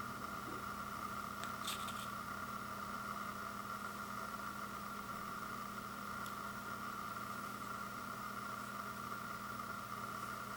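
A steady mechanical hum with a few faint clicks over it, one about two seconds in and another about six seconds in.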